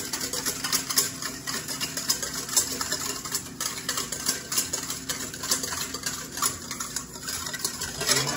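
Wire whisk beating a thin oil-and-vinegar dressing in a stainless steel mixing bowl, its wires clicking against the metal in a quick, steady rhythm.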